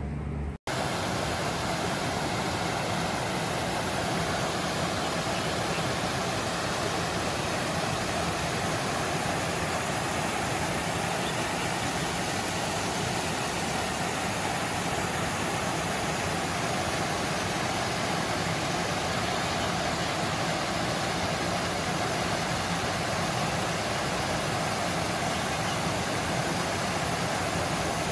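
Small waterfall cascading over rocks into a pool: a steady rush of water that begins abruptly about half a second in.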